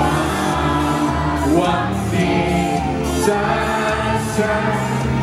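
Live pop song: a man sings into a handheld microphone over steady backing music.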